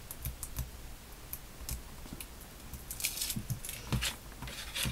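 Sheets of paper and card handled and shifted on a cutting mat: scattered light rustles, crackles and taps, busier in the last couple of seconds, with a soft thump as the paper is set down.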